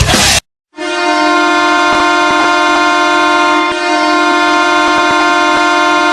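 Hockey arena goal horn blowing one long, steady, loud blast that starts about a second in, right after a burst of rock music cuts off.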